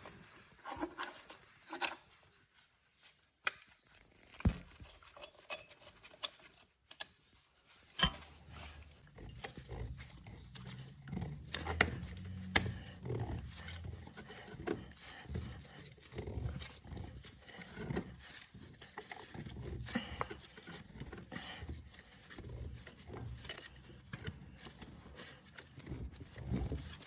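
Brake caliper piston being pushed back with a brake piston press and an old brake pad: a few sharp metal clicks, then, from about eight seconds in, an uneven low groaning and creaking as the press is worked, with clicks of the tool throughout.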